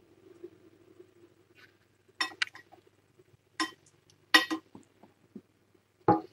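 A utensil clinking against a small dish: about five sharp clinks in three quick groups, starting about two seconds in and ending a little past the middle.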